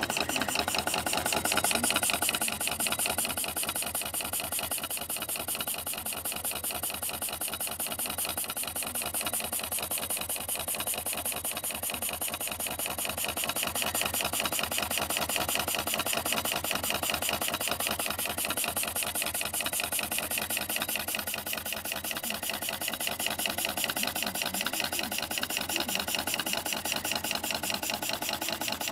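Bing tinplate model steam engine running steadily, its flywheel turning fast, with a rapid, even mechanical beat that does not let up.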